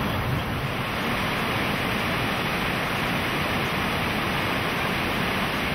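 River rapids rushing over rocks, a steady, even wash of water noise.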